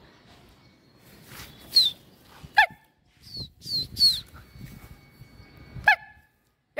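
Short animal calls over a faint low rumble: a few high chirps that slide downward, and two louder, sharper yelp-like calls, one a couple of seconds in and one near the end.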